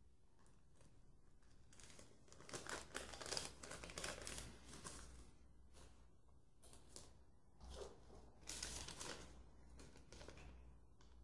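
A folded paper slip crinkles and rustles in irregular bursts as it is taken out by hand and unfolded.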